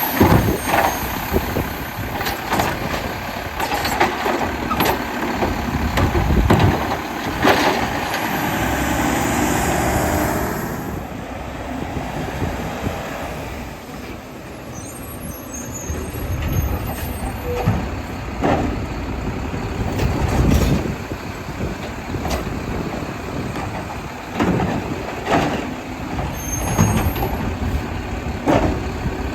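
Mack LEU garbage truck with a Labrie Automizer side-loader body working its route: the engine runs throughout under repeated knocks and clatters, and a long air hiss comes about seven to eleven seconds in.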